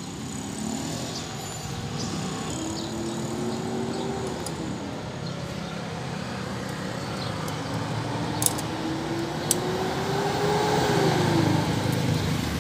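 Nearby road traffic: a steady engine hum, with two vehicles' engines slowly rising in pitch and then dropping away as they pass. Two sharp clicks about a second apart come past the middle.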